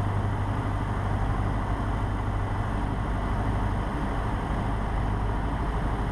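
Cessna 150's four-cylinder engine and propeller droning steadily in the cabin at reduced power on final approach, a constant low hum under a wash of wind and engine noise.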